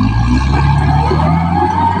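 Caterpillar D6R XL bulldozer's diesel engine revving up and working hard, with a whine that rises in pitch through the middle of the sound.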